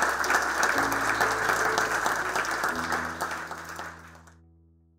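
Audience applauding, a dense patter of many hands, with soft background music of held chords underneath. The applause fades out about four seconds in while the music's last chord rings on.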